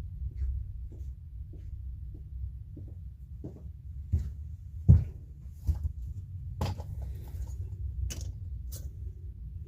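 Tools and odds and ends being handled and moved around: scattered knocks and clatters, the loudest about five seconds in, over a low steady hum.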